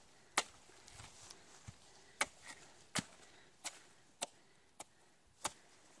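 Machete chopping the fibrous husk of a green coconut: six sharp chops about every half second to second, with a couple of lighter strokes between them, trimming the top open to reach the coconut water.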